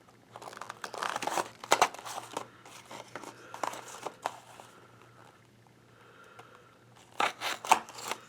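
Blind-bag toy packaging being crinkled and torn open by hand, in irregular bursts of short crisp rustles with a quieter pause in the middle.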